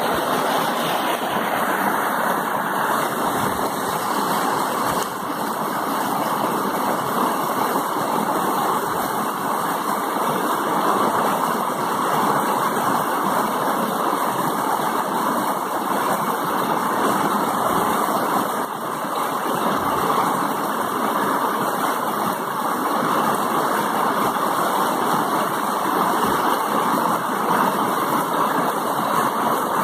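Mountain creek water rushing down a small rocky cascade, a steady full rush.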